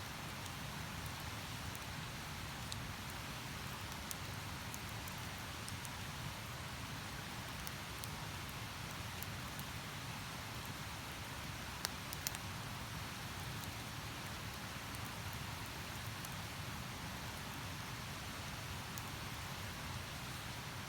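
Steady rushing of a river, with a few sharp crackles from a campfire, two of them close together about twelve seconds in.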